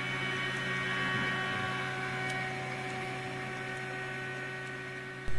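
MakerBot Replicator 2 3D printer starting a print: its Z-axis stepper motor runs with a steady whine of several held tones over a low hum as it raises the build plate.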